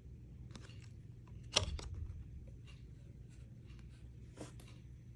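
Trading cards being handled and shuffled: soft scattered clicks and rustles, with one sharper tap about a second and a half in, over a faint steady hum.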